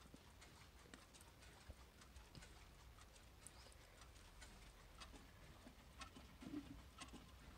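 Faint, sharp ticks of a battery quartz clock movement running, over quiet room tone.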